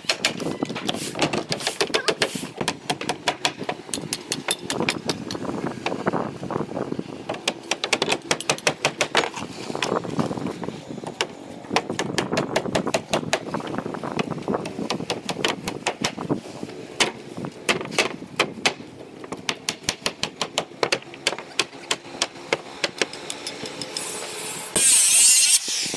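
Claw hammers driving nails into wooden roof formwork: many quick, sharp strikes in an irregular rhythm. About a second before the end, a handheld power saw starts up loud, cutting a plank.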